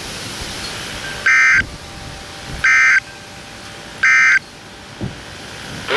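Weather radio sending three short, identical bursts of raspy digital data tone about a second and a half apart: the EAS/SAME End of Message code that closes the severe thunderstorm warning, over a steady hiss.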